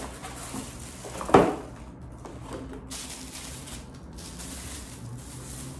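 Plastic packaging crinkling and rustling as chair parts are pulled out of their packing tray, with one sharp knock about a second and a half in.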